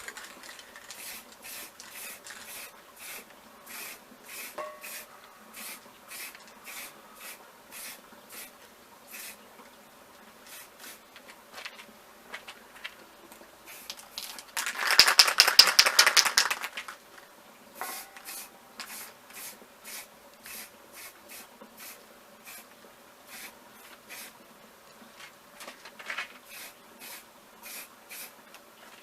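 Short scratchy strokes on a small object, repeating about two to three times a second, with a louder, faster run of strokes lasting about two seconds midway.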